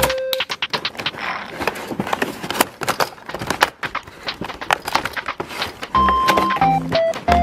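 Dense, irregular clicking and clattering of small hard plastic toy pieces being handled. A simple background-music tune comes back about six seconds in.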